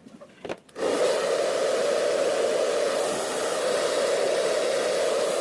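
A couple of clicks, then the Chaoba 2888 hair dryer switches on just under a second in and runs steadily: a loud rush of air with a steady hum in it.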